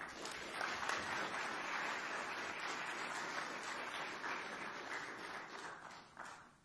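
Audience applauding. It starts suddenly, holds steady, then dies away over the last second or so with a few last claps.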